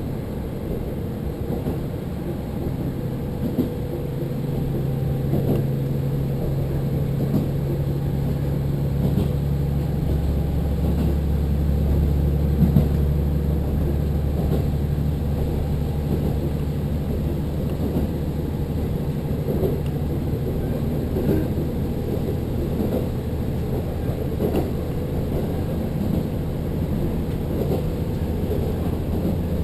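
Diesel railcar heard from inside the cabin while running: a steady low engine drone with wheel-on-rail rumble and scattered light clicks over the rail. The engine note grows stronger and louder about ten seconds in, as the train works under power.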